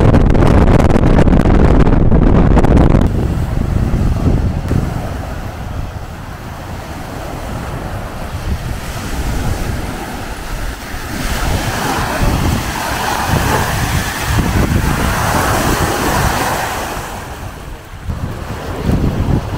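Strong wind buffeting the microphone for the first three seconds, then, after a cut, small wind-driven lake waves breaking and washing up on the shore, swelling and ebbing, with wind still gusting over the microphone.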